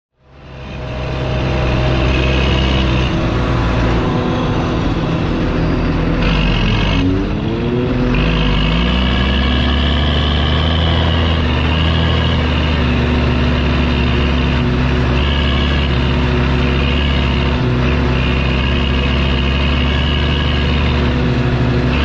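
Fendt 930 Vario TMS tractor's six-cylinder diesel working steadily at load while pulling a silage trailer, with a high turbo whistle over the engine note. About six seconds in the engine note sags, then rises back up.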